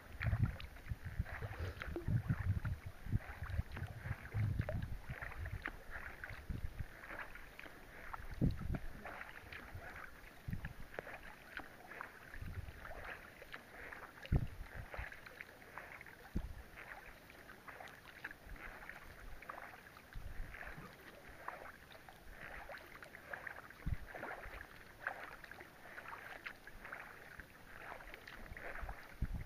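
Rain pattering on a kayak's wet plastic deck and on the lake surface: a dense, irregular patter of small ticks. Low muffled thumps come heaviest in the first few seconds and now and then after that.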